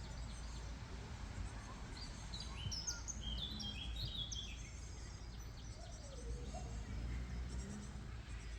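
Outdoor ambience: a songbird sings one quick phrase of high chirping notes, starting about two seconds in and lasting around two seconds, over a steady low rumble.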